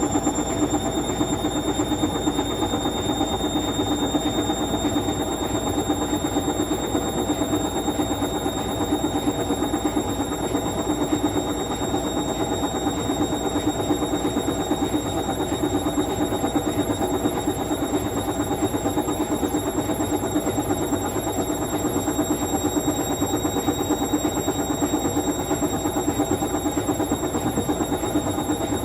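Indesit Moon SIXL145 washing machine spinning at full speed in its final spin, with a steady high motor whine that has just finished rising. Under the whine, a fast rhythmic rubbing from the drum turning against the door seal, which squeaks at speed.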